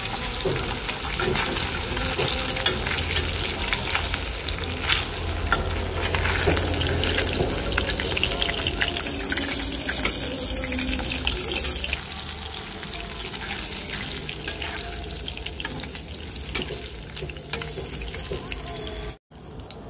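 Whole pomfret frying in hot oil in an aluminium kadai: a steady sizzle with many small crackling pops, easing off somewhat in the second half, as a metal spatula scrapes and knocks against the pan lifting the fried fish out. The sound cuts out briefly near the end.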